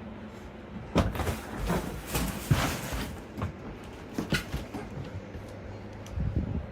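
A run of hard knocks and clattering rattles, like objects being handled or bumped, over a steady low hum; the knocks bunch up between about one and four and a half seconds in, with a few more near the end.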